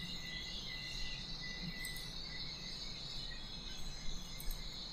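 Faint steady background noise: a low hum under an even high-pitched hiss, with no distinct events.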